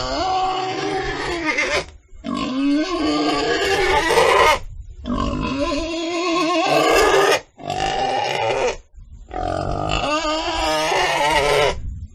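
Pigs grunting, in several stretches broken by sudden short gaps.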